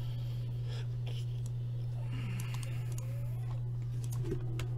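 Steady low hum with a few sharp clicks of typing on a computer keyboard in the second half.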